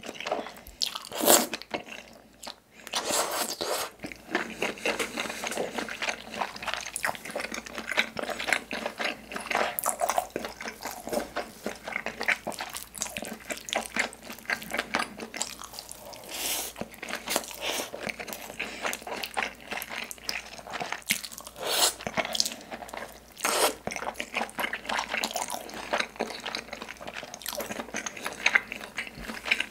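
Close-miked eating sounds of spicy tteokbokki with melted cheese: wet, sticky chewing with frequent smacks and clicks, and a slurp about a second in. A seaweed-coated rice ball is taken and chewed about halfway through.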